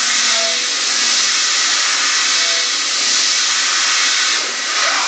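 Torq-Cut 22 CNC mill cutting a hole in steel plate: a loud, steady hiss of the cut, with a brief falling whine near the end.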